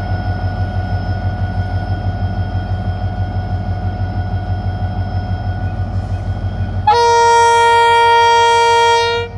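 HGMU-30 diesel-electric locomotive's engine running with a steady, low, pulsing throb as the train moves slowly. About seven seconds in, the locomotive's multi-tone air horn sounds one loud blast of about two and a half seconds.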